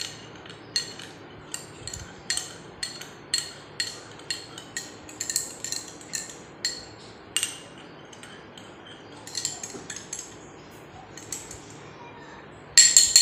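Metal spoon stirring face wash into water in a glass bowl, clinking against the glass in a run of light ticks about one or two a second. After a short lull comes a louder quick flurry of clinks near the end.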